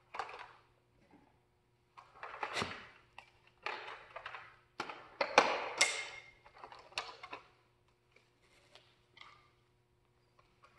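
Hard plastic clicks, knocks and scrapes of a Nerf Longstrike blaster being handled while a plastic afterburner unit is fitted onto its muzzle, in a run of short bursts, loudest about halfway through.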